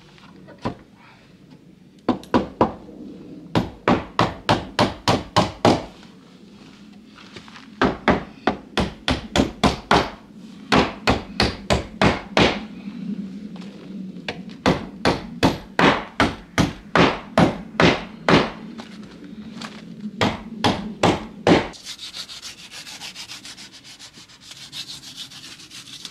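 Hammer blows on the wooden window and door frames, in runs of quick knocks about three a second, with short pauses between runs. Near the end the knocking gives way to a steady rasping scrape, a knife trimming cured expanding foam along the door edge.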